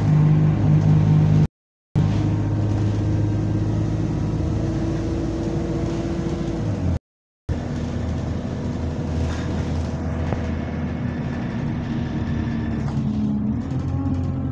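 Bus engine heard from inside the passenger saloon, running under way with a steady moany drone and a faint thin whine above it, which the uploader puts down to a burst turbo. The sound drops out completely twice for about half a second.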